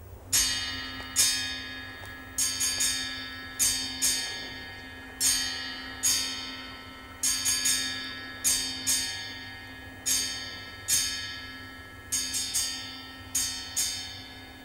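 Music: a slow, uneven run of bell-like struck notes, each ringing and fading, some in quick groups of two or three, over a held low tone.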